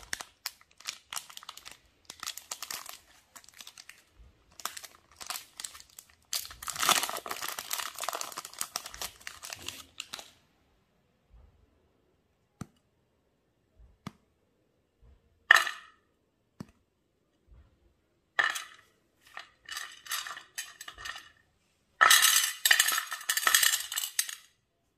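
Cadbury Dairy Milk Crispello chocolate-bar wrapper crinkling and tearing in bursts as hands open it, for about the first ten seconds. Then come a few scattered sharp clicks and clinks, and more bursts of crinkling near the end.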